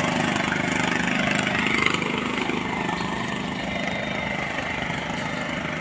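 A small engine idling steadily, a little quieter after about two seconds.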